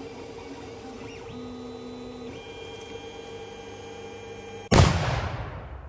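An FDM 3D printer's stepper motors whining steadily as it prints PLA, their tones shifting in pitch now and then as the head moves. About four and a half seconds in, a sudden loud bang from a black powder cannon cuts in and dies away over about a second.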